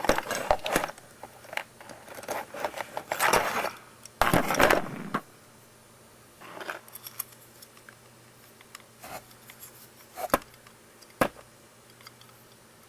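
Hands handling small plastic parts: scraping and rustling for the first few seconds, then a few scattered sharp clicks, the loudest two near the end.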